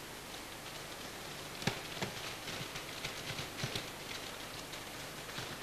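Steady hiss with a faint low hum, as on an old camcorder tape. From about a second and a half in come irregular light knocks and clicks, the first the loudest.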